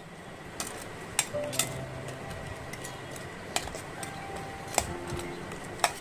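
Metal spatula clinking against an aluminium pot, about six sharp knocks at irregular intervals, as fried pitha are turned in sugar syrup.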